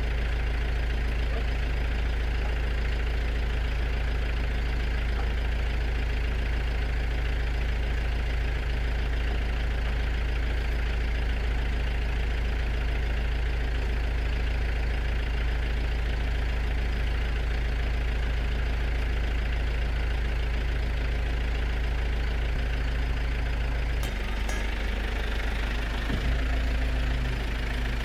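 A steady low machine drone, like an engine running. Its low tone shifts about four seconds before the end, with a click as it changes.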